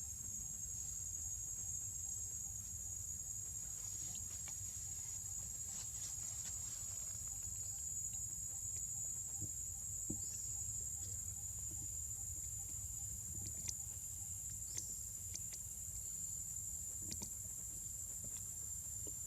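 Steady, high-pitched drone of an insect chorus, with a few faint scattered clicks and rustles.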